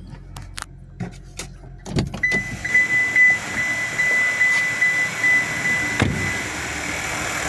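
A few sharp clicks, then from about two seconds in the running engine of a Renault Duster 1.3 turbo direct-injection comes through louder, with a steady high whine. A sharp knock about six seconds in. The mechanic puts the engine noise down to a failing high-pressure fuel pump.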